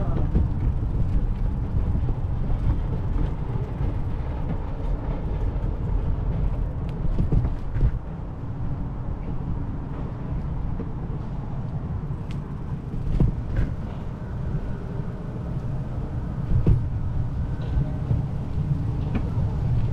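Wind and ride rumble on a bicycle-mounted GoPro while riding, a steady low buffeting with a few small clicks and rattles.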